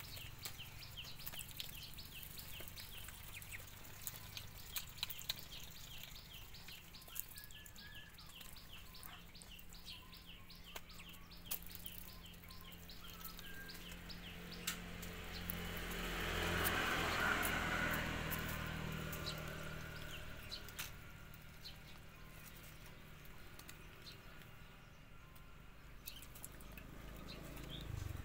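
Outdoor farmyard ambience. A small bird chirps in a fast, regular series of short high notes through the first half, while sharp clicks and rustles come from ducks pecking at dry leaves. A broad rushing noise swells and fades about two-thirds of the way through, over a low steady hum.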